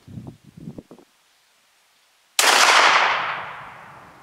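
A single shot from a 12-gauge Remington 870 pump shotgun firing a slug, about two and a half seconds in, sudden and loud, then tailing off over a second or so. A few soft low knocks come before it, then a short dead silence.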